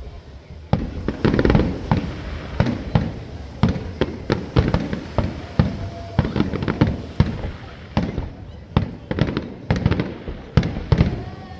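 Fireworks going off in a rapid, irregular string of loud bangs, several a second, each with a short rumbling echo.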